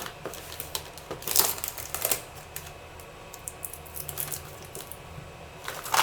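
Packaging and small plastic parts being handled by hand: a run of light, irregular clicks and clatters mixed with short bursts of rustling.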